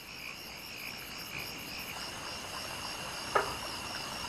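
Night insects chirring steadily in a pulsing chorus, with one short, loud call about three seconds in from a courting male spiny-chested frog (stone frog, Quasipaa spinosa), the call the male uses to attract females.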